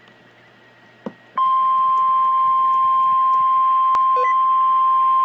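Weather radio warning alarm tone: after a faint hum and a click, a single loud, steady high beep starts abruptly about a second and a half in and holds without a break. It is the NOAA Weather Radio alert tone that heralds a severe thunderstorm warning.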